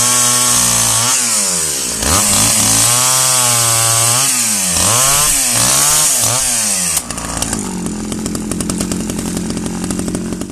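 Stihl 009 two-stroke chainsaw cutting through conifer trunk wood at full throttle, its pitch dipping and recovering several times as it bogs under load. About seven seconds in the throttle is released and it settles to a steady idle. It cuts out at the end.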